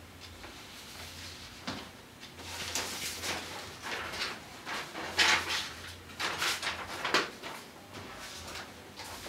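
Loose sheets of paper rustling as they are handled, shuffled and turned over, in a string of irregular rustles starting a little under two seconds in, with the loudest ones about five and seven seconds in.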